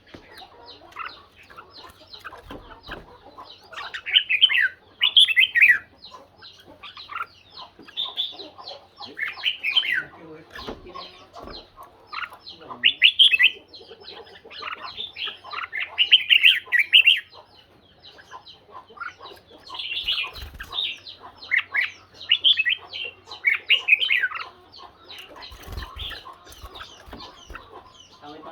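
Red-whiskered bulbuls singing against each other in a song contest: loud, quick warbling phrases that come in bursts every couple of seconds, with softer calls between.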